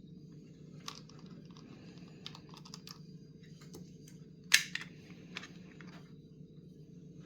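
Scattered small clicks and taps of objects being handled, with one much louder sharp click about four and a half seconds in, over a low steady background hum.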